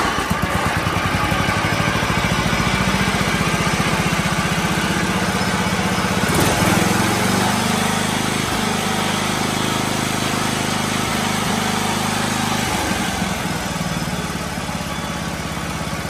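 Briggs & Stratton 11 hp engine of a John Deere 111 lawn tractor running steadily, now smooth with a new fuel filter and fuel lines where before it would not idle. About thirteen seconds in it slows and gets quieter as the throttle is eased back.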